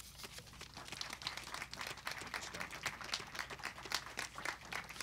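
Audience applauding: many quick, irregular hand claps.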